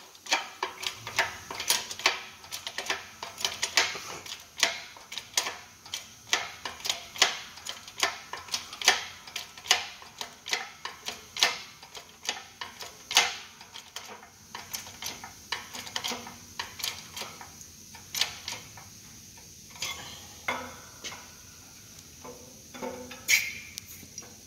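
Shop press seating a new control arm bushing: a run of sharp metallic clicks and ticks, about two or three a second, as the bushing is pressed gradually into place. The clicks thin out near the end.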